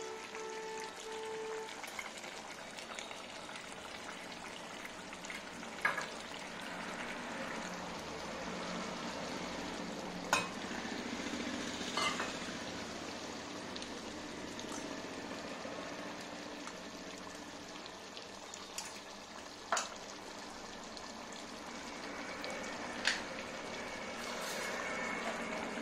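Steady sizzling hiss of food cooking on a gas stove, broken by a few sharp clicks against the pots.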